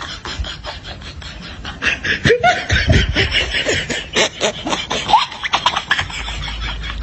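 Person laughing hard: a burst of rapid, breathy laughs with swooping pitch, starting about two seconds in and dying away around six seconds.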